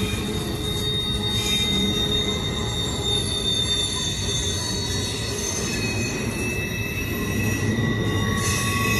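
Double-stack intermodal freight train rolling past at a steady pace: a continuous rumble from the container cars, with high-pitched wheel squeal held over it.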